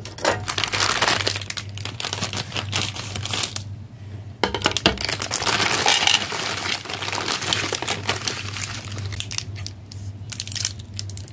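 Plastic crinkling of a bag of individually wrapped hard candies being handled and emptied onto a plate, the wrapped candies clattering as they fall. Near the end there are a few sharper snips as scissors cut into a candy wrapper.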